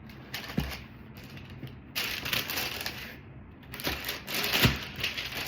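Handling of a cardboard shoebox and its packing: irregular rustling in three spells, with a couple of sharp knocks.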